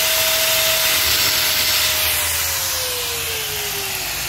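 Angle grinder with its disc against a mill's grinding stone, cutting a V-shaped mark into it, with a steady whine and hiss. About two seconds in it is switched off, and its whine falls in pitch as the disc spins down.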